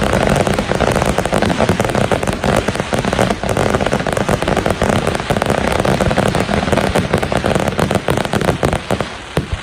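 Fireworks going off: a loud, dense crackle of countless small pops from bursting crackling stars, with heavier bangs mixed in, falling away near the end.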